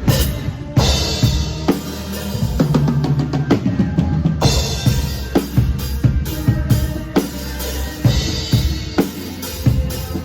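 Live band music with a drum kit prominent: kick drum and snare hitting steadily over a low bass line.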